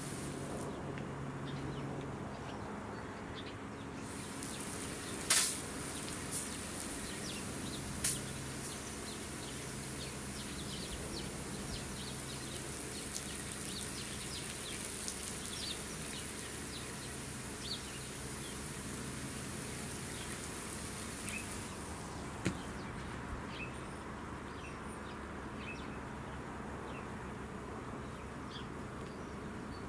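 A steady hiss of spray starts about four seconds in and stops after about eighteen seconds, with two sharp clicks early on it and many small ticks later, as droplets strike a pole-mounted PTZ security camera. A faint low hum runs underneath.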